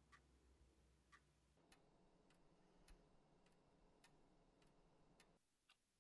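Faint ticking of a clock in a near-silent room, about one tick a second, quickening to a little under two ticks a second for a few seconds in the middle.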